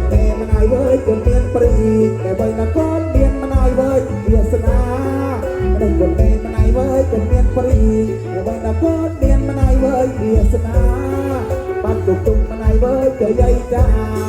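Live folk music played loud: a singer over plucked strings and a steady low drum beat.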